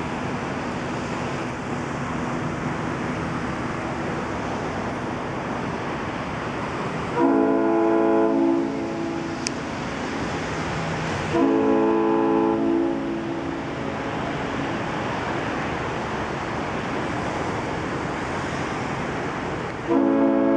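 Yacht horns sounding across the harbour in a steady din, with a nearby ship's horn giving long blasts: one of about two seconds, one of about a second and a half, and a third starting near the end.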